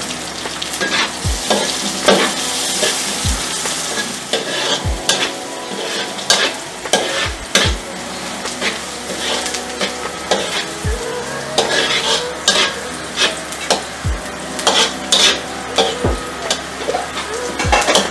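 Chopped onion and garlic sizzling in hot oil in a wok, with a metal spatula scraping and clicking against the pan at irregular moments as it is stirred: the sautéing (gisa) stage.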